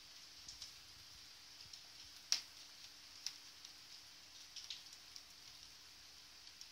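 Raindrops ticking irregularly against a window pane, over a faint steady hiss of rain. The sharpest tick comes a little over two seconds in.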